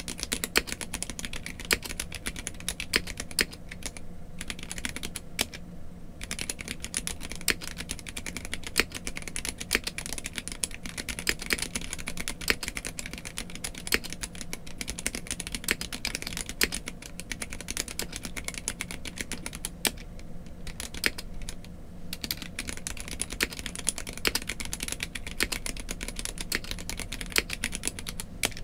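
Typing on a Gamakay (Womier) K87 hot-swap mechanical keyboard with an acrylic case and Gateron Red linear switches: fast, continuous keystrokes with a few short pauses.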